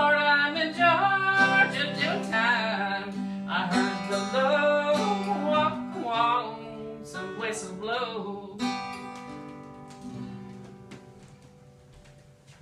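A woman's wordless yodel, the pitch breaking and wavering up and down, over strummed guitar for the closing bars of the song. About eight and a half seconds in the voice stops and the last guitar chord rings out and fades away.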